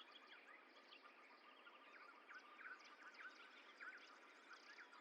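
Faint birdsong: many small birds chirping with quick, short notes over a steady background hiss.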